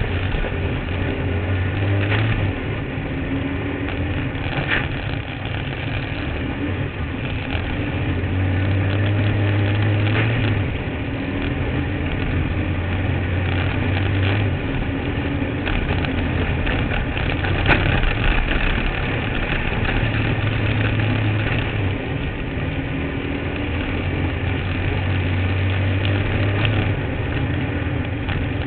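Kart cross engine running hard on a dirt track, heard from on board: its low note rises and drops away every few seconds as the driver accelerates and lifts. Knocks and rattles from the chassis over bumps run through it, sharpest about two, five and eighteen seconds in.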